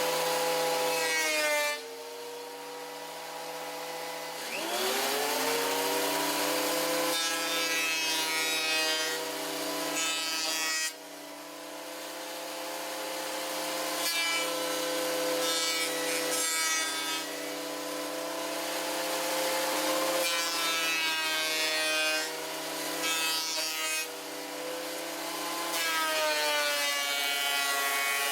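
Electric wood planer running with a steady whine, shaving trim boards down to thickness in several loud passes, its pitch sagging and recovering between passes.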